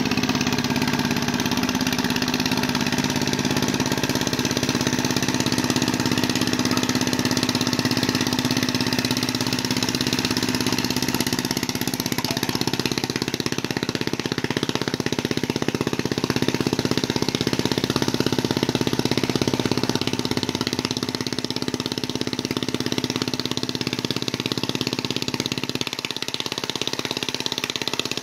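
Engine of a mud boat tiller running steadily at a constant speed.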